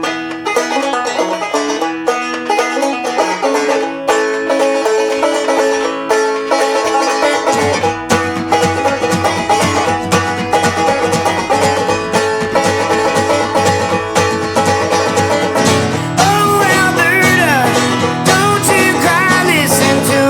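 Background music with many quick plucked notes. A low bass line comes in about eight seconds in, and a sliding melody line joins near the end.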